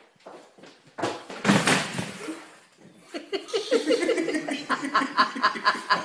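A person sliding on their front across a wooden tabletop, a rubbing swish about a second in, followed from about three seconds in by rapid bursts of laughter.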